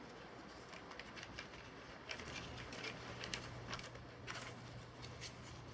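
Faint scattered clicks and rustles of small materials being handled on a workbench, over a low steady hum that comes in about two seconds in.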